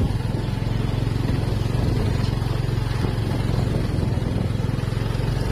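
Motorcycle engine running steadily while riding, a low even hum that holds one pitch throughout.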